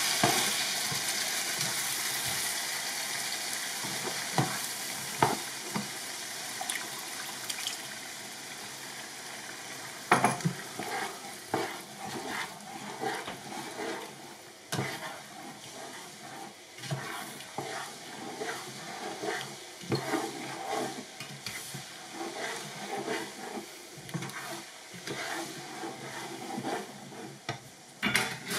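Liquid poured into a hot pan of lentils and vegetables sizzles loudly and hisses down over the first several seconds. Then a spatula stirs the simmering lentil curry, with irregular scrapes and knocks against the pan.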